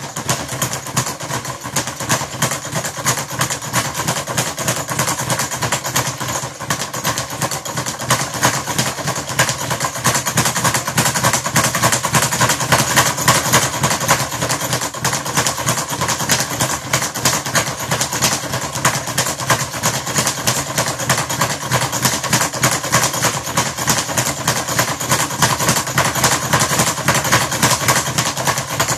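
Speed bag on an Everlast gyro swivel being punched continuously, a fast, unbroken rattle of the bag rebounding off the wooden board. It starts abruptly.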